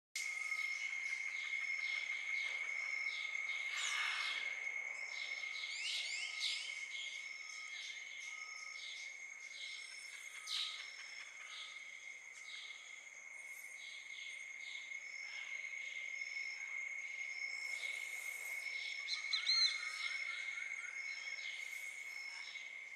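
Tropical forest insects: a steady high-pitched drone with a pulsing call repeating evenly over it, and a few short bird calls on top, one a whistled note late on.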